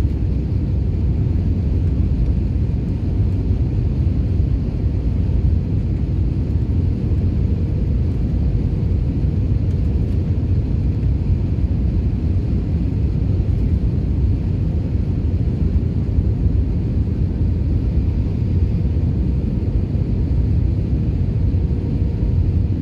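Jet airliner cabin noise from a window seat: a steady, deep rumble of the engines and airflow, with a faint steady hum on top.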